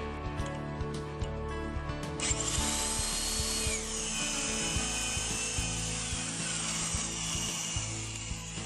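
Power drill boring into the wooden edge of a door through a lock-mortising jig's drill bushing. It starts about two seconds in and runs on with a high whirring whine that shifts in pitch. Background music plays underneath.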